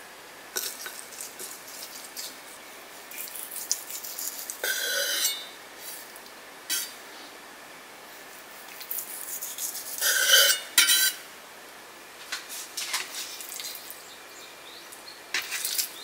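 A kitchen knife tapping and scraping on a wooden cutting board as chopped herbs and cooked chicken breast are cut, in scattered irregular strokes with two louder scrapes about five and ten seconds in.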